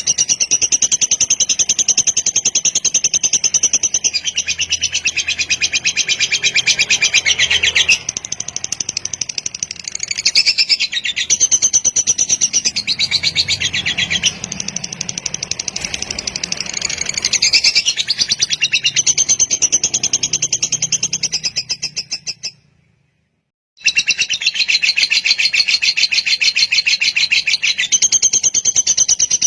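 Lovebird singing a long, rapid chattering trill, the 'kekek panjang' song of a fighter lovebird. It cuts to silence for about a second near the end, then starts again.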